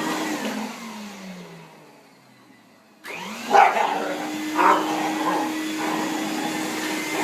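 Vacuum cleaner switched off, its motor winding down to near silence, then switched back on about three seconds in and spinning back up to a steady hum. A dog barks twice, shortly after the restart.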